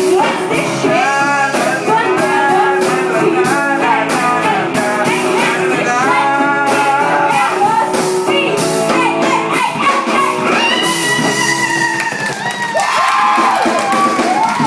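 Live rock-pop song: a voice singing over guitar with a steady beat, with a long held note in the second half.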